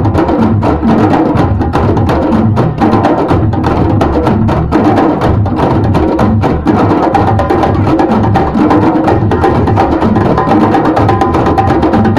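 A group of djembes played together by hand, many strikes overlapping in a fast, steady rhythm that carries on without a break.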